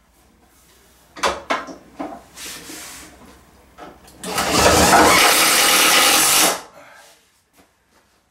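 A few knocks of handling, then a cordless drill running, a short fainter whir followed by a steady run of about two and a half seconds that stops suddenly, driving a screw into the window frame to mount the shade.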